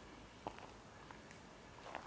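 Quiet background with faint footsteps on a dirt trail: a few soft crunches and ticks, one sharper click about half a second in.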